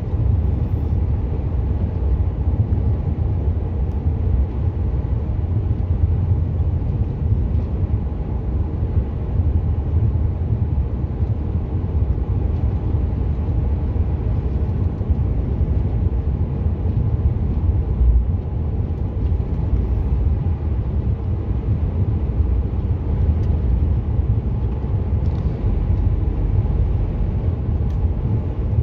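Truck driving at a steady pace, heard from inside the cab: the even low rumble of the engine and tyres on the road.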